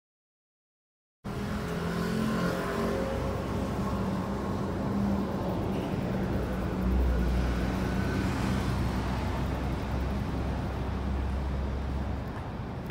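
Steady background noise and hum. It begins after about a second of silence, and a deeper low rumble swells from about seven to twelve seconds in.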